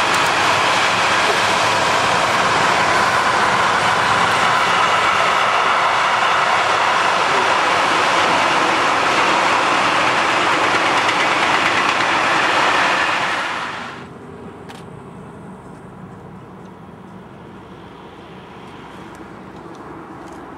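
Freight train of covered sliding-wall wagons rolling past: a steady rattle of wheels on rails. About thirteen seconds in it drops away quickly as the end of the train goes by, leaving a faint open-air background.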